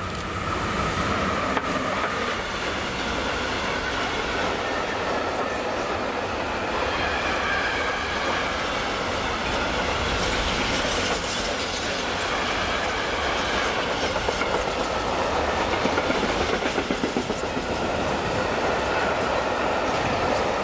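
Electric-hauled freight train passing close, wagon wheels clattering over the rail joints with a steady rushing and wavering high-pitched wheel squeal. It grows louder over the first second as the locomotive goes by, then holds steady as the wagons roll past.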